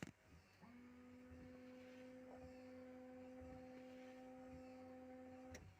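Lada Largus rear-window washer pump motor running: a faint steady electric hum that spins up about half a second in and cuts off near the end.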